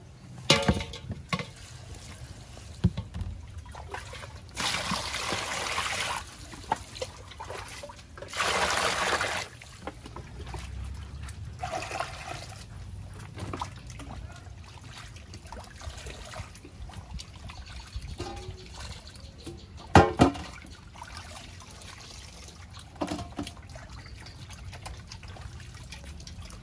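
Water splashing and trickling as whole plucked chickens and shredded bamboo shoots are washed by hand in basins of water, with small knocks and clicks throughout. Two louder rushes of water come about five and nine seconds in, and a sharp knock about twenty seconds in.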